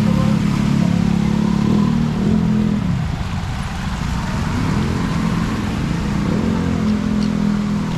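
A motor vehicle's engine running, with a steady low hum. It drops away about three seconds in and comes back strongly a couple of seconds later.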